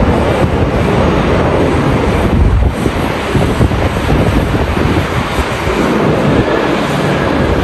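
Strong wind buffeting the microphone in gusts, a loud rumbling rush that covers the jet engines of a Boeing 787-9 airliner.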